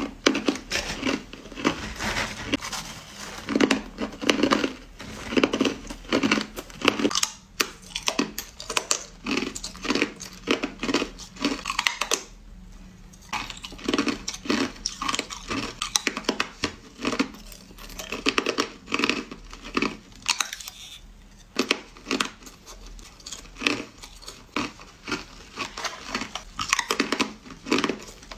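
Hard crushed ice being bitten and crunched close to the microphone: quick, repeated sharp crunches, several a second, with a brief pause about twelve seconds in.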